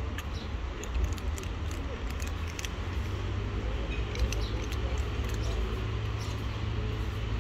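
Two kittens crunching dry kibble: scattered small, sharp crackles and clicks over a steady low rumble.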